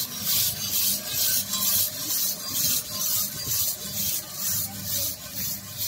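Grain pouring from a hopper feeder into the steel buckets of an inclined bucket elevator: a rustling hiss that surges about twice a second as the buckets fill, over a steady low machine hum.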